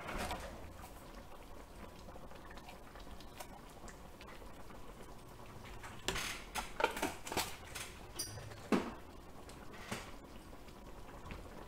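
Mostly quiet: a wooden spoon stirring spicy braised chicken stew in a pot, with a few short mouth sounds from tasting the sauce off the spoon about six to nine seconds in.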